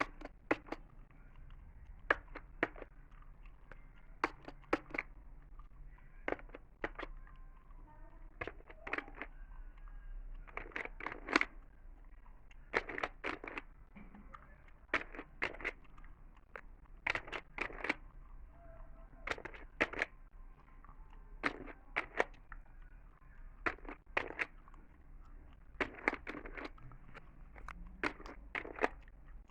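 Chewing gum close to the microphone: irregular sharp wet clicks and smacks, often in quick pairs or clusters every second or so.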